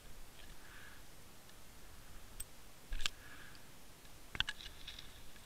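Underwater sound from a Water Wolf camera on a fishing line: a faint hiss with a few sharp clicks and knocks as the rig moves through kelp. The loudest click comes about three seconds in, and a quick cluster of clicks follows a little after four seconds.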